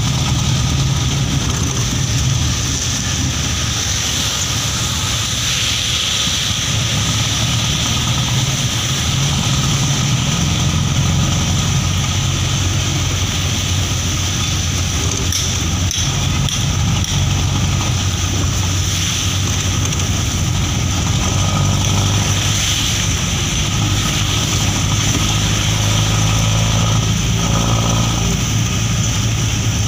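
Engine of the open-sided vehicle being ridden in, running steadily as it drives, with a steady hiss of tyres on the rain-wet road.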